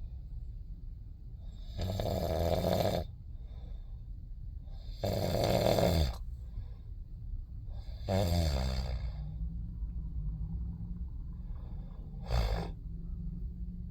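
Snoring: four loud snores about three seconds apart, the last one short, over a steady low hum.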